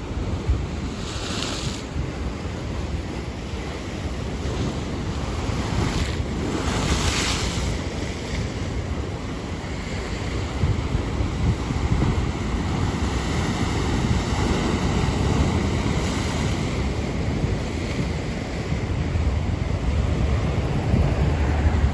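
Atlantic Ocean surf breaking and washing in, swelling in surges about a second in and again around seven seconds, under a steady low rumble of wind on the microphone.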